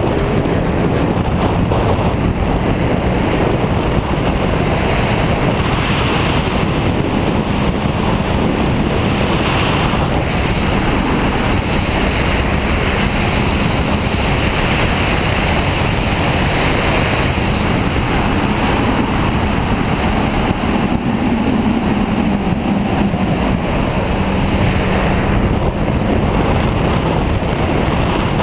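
Steady wind rush on the microphone and the rumble of studded tyres on ice and packed snow, with the Audi 90 quattro's 2.8-litre 12-valve V6 audible underneath, its note rising and falling as the car drives the course.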